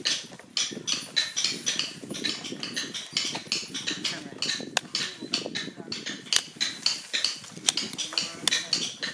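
Paper and card rustling and crackling in quick, irregular clicks as a lotus cracker is assembled by hand from rolled paper and card discs, with a few sharper snaps among them.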